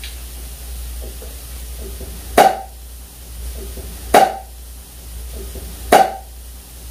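Three loud gulps, evenly spaced about two seconds apart, as a man swallows a drink from a small glass, over faint background room noise.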